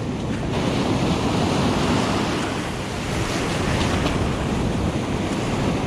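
Ocean surf breaking and washing on a beach, with wind buffeting the microphone. The wash swells about half a second in and then holds steady.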